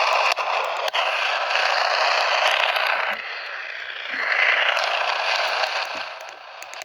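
Radio static: a loud hiss with a few crackles, dipping about three seconds in, swelling again a second later and fading near the end.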